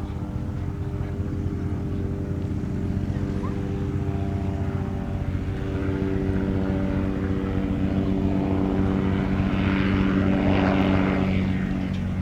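Light propeller aircraft's piston engine running steadily, growing louder as it comes close and peaking with a rush of propeller noise about ten seconds in, then easing slightly.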